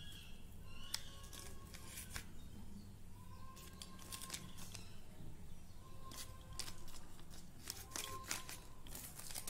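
Thin clear plastic zip-lock bag crinkling and rustling in the hand as small plastic test-kit pieces are put into it, in short irregular crackles.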